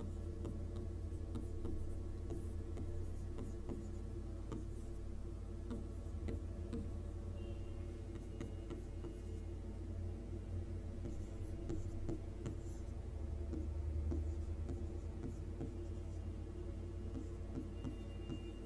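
Stylus writing on a touchscreen board: light taps and scratches, over a steady low hum.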